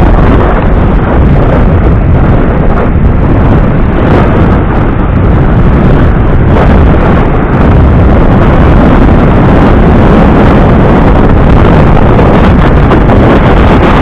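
Strong wind buffeting the microphone: a loud, steady rumble.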